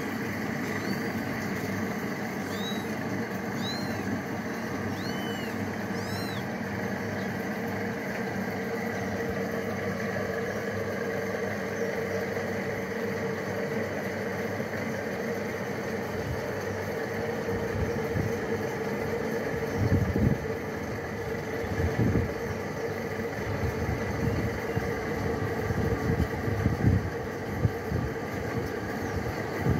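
A steady mechanical hum, with a few short high chirps in the first six seconds and low bumps and knocks in the last third.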